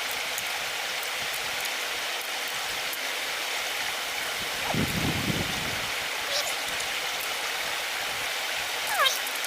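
Steady rush of running water, with a brief low rumble or thump about five seconds in and a few short squeaky chirps near the end.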